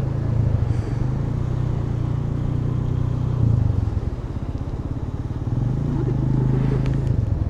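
Motorcycle engine running steadily while riding, heard up close from the bike itself.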